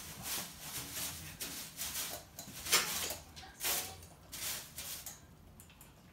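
Two toy poodles moving about and playing on a hard floor: a run of irregular short scuffling noises, loudest twice around the middle, dying down near the end.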